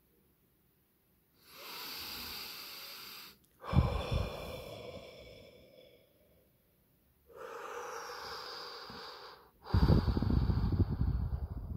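A man breathing in and out slowly and heavily, twice, close to the microphone. Each long, hissing in-breath is followed by a louder out-breath that blows on the microphone, with a slight nasal whistle.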